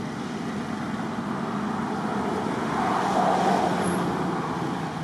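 Road traffic: a motor vehicle passing, its noise growing louder to a peak about three and a half seconds in and then fading.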